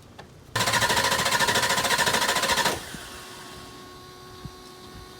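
Ford 7.3 L Powerstroke diesel being started: a sudden loud, fast rhythmic chatter for about two seconds, then dropping to a much quieter steady hum. The truck is starting on starting fluid after its fuel lines were replaced and bled.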